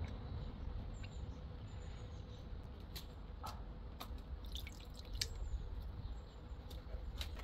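A few scattered sharp clicks and drip-like plinks, bunched in the middle, over a low rumble, with faint high chirps throughout.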